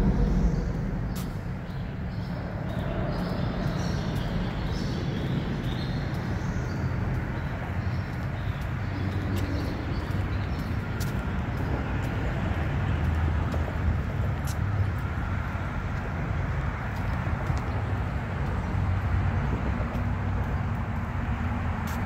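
Outdoor ambience on a walk: a steady low rumble, with a few faint bird chirps during the first several seconds and scattered faint clicks.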